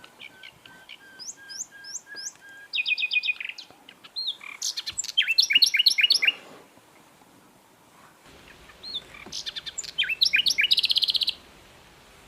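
Sikatan londo flycatcher singing: quick, sweeping whistled notes and fast trills in two loud bursts, with a short pause between them.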